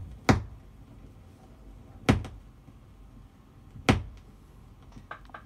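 Turntable stylus tracking the lead-in groove of a spinning vinyl record: faint surface noise with a loud pop repeating about every two seconds, three times, and a few light ticks near the end.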